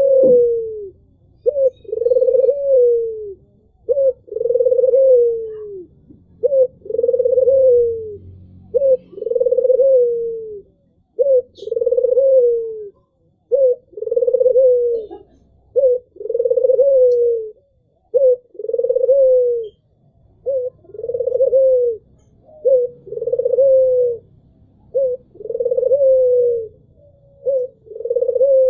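An albino puter (white collared dove) cooing over and over: each coo is a short note followed by a longer note that falls at its end, repeated about every two seconds.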